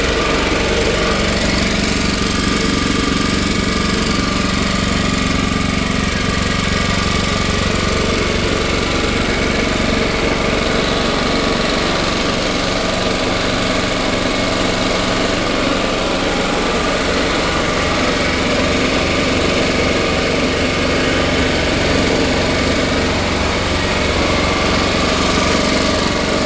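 Steady running of a Champion 4000-watt open-frame inverter generator in a workshop, mixed with an air compressor running, which is the louder of the two.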